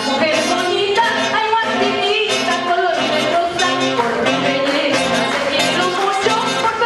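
Andean orquesta típica playing: a woman sings into a microphone over saxophones, violin, trumpet and harp, with a steady bass beat about twice a second.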